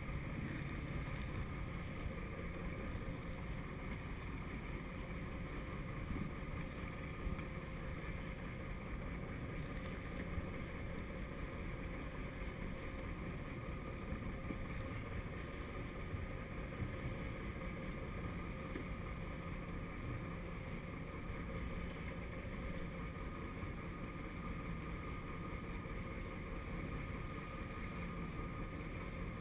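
Boat engine running steadily with a low, even hum, under wind and water noise as the boat moves through choppy water.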